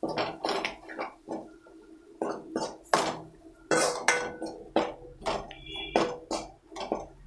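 Ladle scraping and knocking against a kadai while stirring ground masala frying in oil, in repeated irregular strokes about twice a second.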